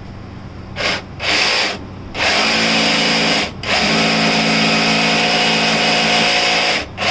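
Jigsaw cutting: two short bursts about a second in, then two long runs with a brief stop midway, and another short burst near the end.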